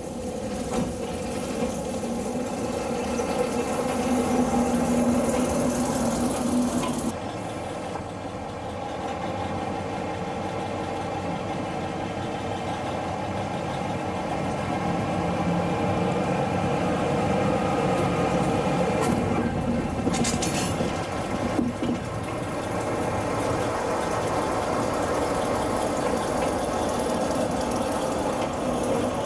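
Diesel locomotive engine running: a small diesel shunting locomotive getting louder as it approaches, then, after a sudden change about seven seconds in, a steady diesel engine running at low revs. A short hiss sounds about two-thirds of the way through.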